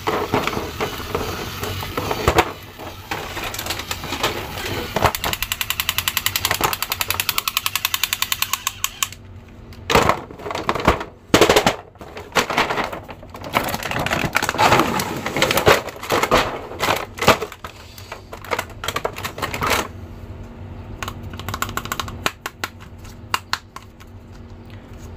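Battery-powered Spider-Man soldier toy with a rifle playing its electronic machine-gun sound, a rapid even rattle that stops about nine seconds in. After that, irregular plastic clatter and rustling as the figures and their packaging are handled.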